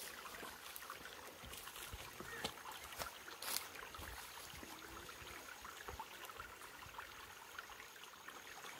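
A small, shallow brook trickling over flat rock and stones: a faint, steady rush of running water, with a few light clicks.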